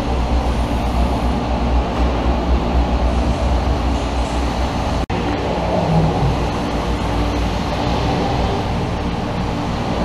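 Steady, deep rumbling background noise, with a momentary cut about five seconds in.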